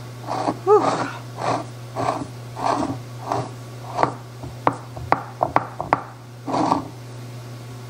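Fingertips pressing and patting an oily press-in pie crust dough into a pie plate: a run of soft pats and rubs, two or three a second, over a steady low hum.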